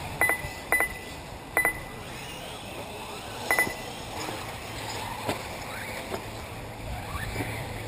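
Short electronic double beeps, four of them in the first four seconds, over the faint rising and falling whine of radio-controlled off-road buggies racing on a dirt track.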